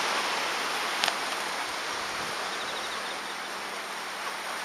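Steady hiss of calm sea surf washing onto the beach and rocks, with a brief click about a second in.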